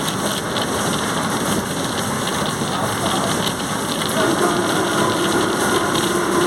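Volkswagen 17.230 OD bus under way: a steady rushing road and engine noise, joined about four seconds in by a steady whine from the transmission.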